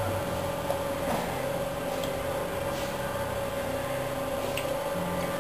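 A steady mechanical hum, with a few faint light clicks as a paint can and mixing cup are handled.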